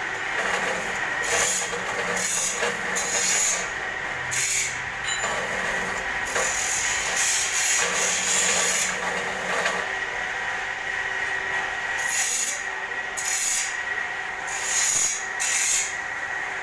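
Electric sugarcane cutter machine running with a steady motor whine, with repeated rasping, scraping bursts as a sugarcane stalk is pushed and drawn through its blades.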